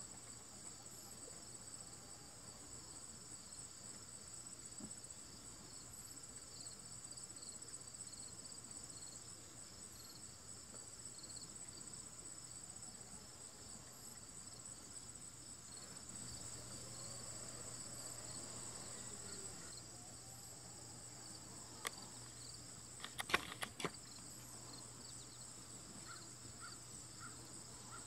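Steady high-pitched insect chorus with a quick pulsing beneath it, and a few sharp clicks about two thirds of the way through.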